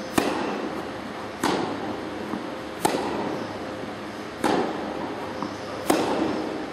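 Tennis ball struck back and forth with rackets in a rally: five sharp hits about a second and a half apart, each echoing briefly in an indoor tennis hall.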